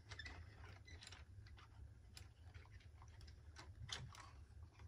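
Near silence, broken by faint, scattered clicks and taps of a hard-plastic New Bright toy train locomotive being handled and turned over in the hands.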